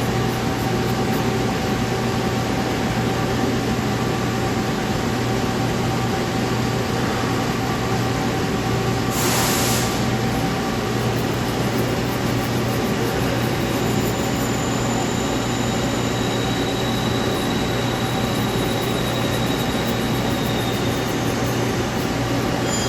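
A Swiss-type CNC lathe running steadily with a constant mechanical hum and a steady tone. About nine seconds in, there is a brief hiss lasting about a second.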